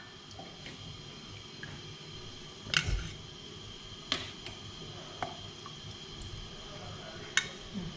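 Kitchen utensils clinking four times, sharp and short, against a pot or bowl over a faint steady hum.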